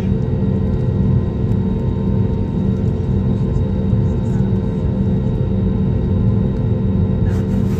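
Steady engine drone and airflow rumble heard inside an aeroplane cabin in flight, deep and even with a few steady humming tones. A short, faint noise comes near the end.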